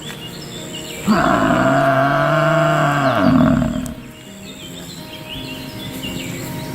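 A cow mooing once, a long low call starting about a second in and lasting nearly three seconds, its pitch rising and then falling.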